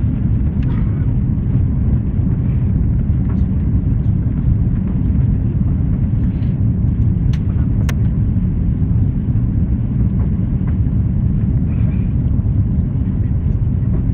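Steady low rumble of airliner cabin noise on final approach, heard from a window seat, with a couple of faint clicks about halfway through.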